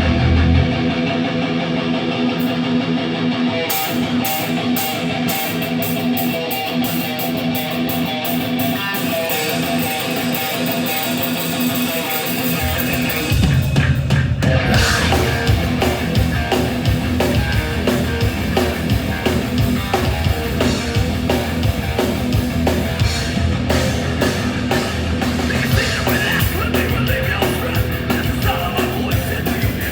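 Live heavy metal band playing: guitar carries the opening with rapid cymbal ticks joining about four seconds in, then the full band comes in with heavy low end about thirteen seconds in.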